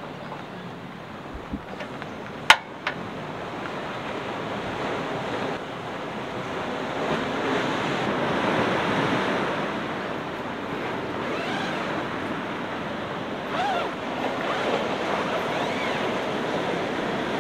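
Sea waves washing on the shore in a steady rush that swells about halfway through. A sharp click comes a couple of seconds in, with a few fainter ones around it.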